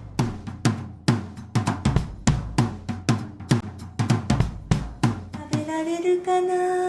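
Background music: a steady drum beat of kick and snare, about four hits a second, giving way about five and a half seconds in to a single held note that rises slightly.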